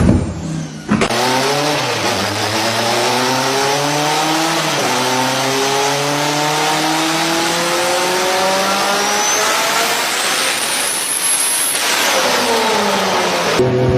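A modified car's engine on a chassis dyno, held at full throttle through one long pull with its pitch climbing steadily for about ten seconds. A thin high turbo whistle rises with it near the top of the pull. The revs then drop off as the throttle is lifted. A short cut about a second in, and another near the end, splice in a different pull that is already revving up.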